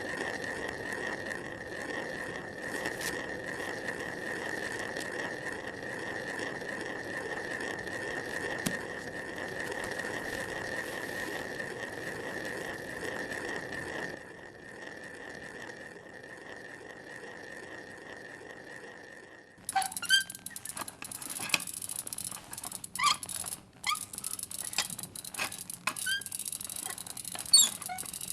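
A steady hiss with a high whine. About 20 seconds in, irregular sharp mechanical clacks begin: typewriter keys being struck, at an uneven pace.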